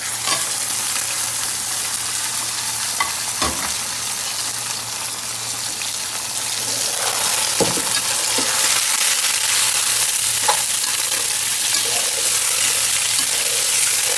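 Raw chicken pieces hitting hot oil and fried onions in a metal kadai, sizzling in a loud, steady hiss as they start to fry. A spatula clinks against the pan a few times as the chicken is stirred.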